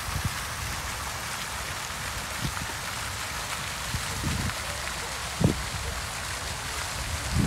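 Fountain jets splashing into a pool: a steady hiss of falling water. A few short low thumps cut through it, the loudest about five and a half seconds in.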